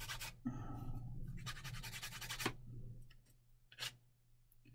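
Emery board rubbing in quick, even strokes on a small plastic model part, filing off excess plastic left from the mould. It comes in two short spells, the second ending in a click about two and a half seconds in, followed by a light tap near the end.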